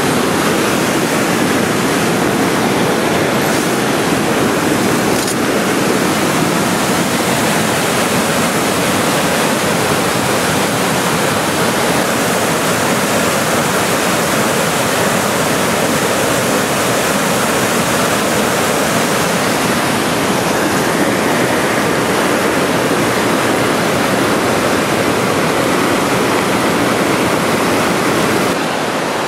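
Whitewater rapids of a rocky creek, rushing loudly and steadily.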